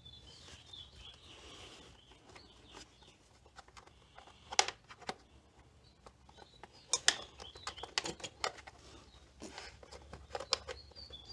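Scattered clicks and light knocks from hands working a throttle cable into place on a Yamaha Riva 125 scooter's carburetor, the sharpest about a third of the way in and a cluster in the second half. Birds chirp faintly at the start and again midway.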